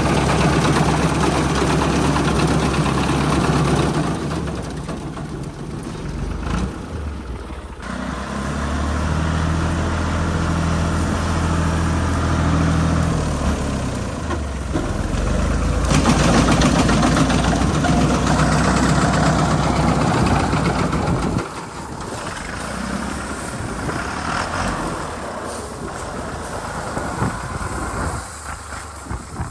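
Diesel tractor engine running with its speed and load changing, getting quieter about four seconds in, louder again from about eight seconds and sixteen seconds, and dropping back near the end.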